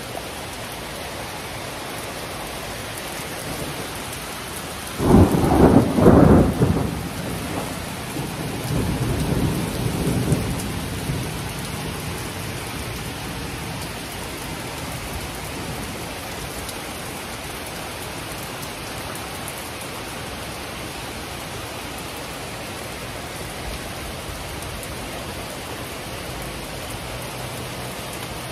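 Heavy rain falling steadily through a thunderstorm, with a close thunderclap about five seconds in that rumbles on for several more seconds before dying back into the rain.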